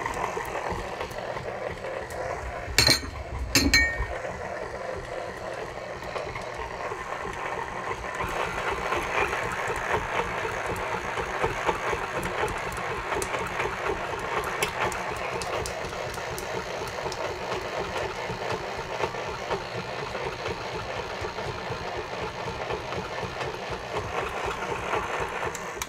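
KitchenAid Classic stand mixer running steadily with its wire whip, beating butter and agave in a stainless steel bowl. Two sharp knocks come about three seconds in, and the motor stops at the very end.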